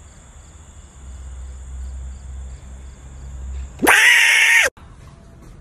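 A sudden loud, harsh scream with a flat, unchanging pitch about four seconds in, lasting under a second and cut off abruptly. Before it there is only a faint steady high-pitched whine over a low rumble.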